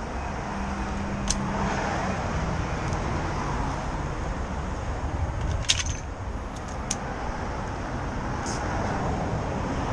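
Urban street traffic noise: a steady rumble of passing and idling road vehicles, with a few sharp clicks.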